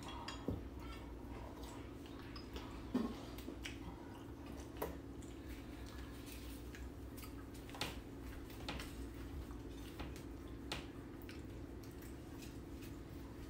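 Quiet dinner-table sounds: scattered faint clicks and taps of chopsticks and bowls, a little louder about 3 s in, over a steady low hum.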